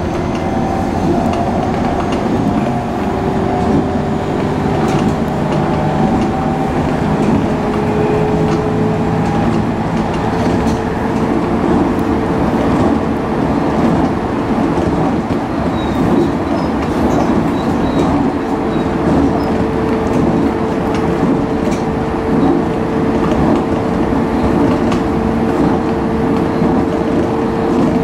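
Aichi Loop Railway electric train running along the track: a steady rumble with a motor whine that rises slowly over the first ten seconds or so, then holds a steady pitch.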